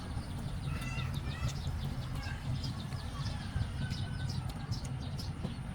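Birds chirping in short calls over a steady low rumble, with scattered faint crackles.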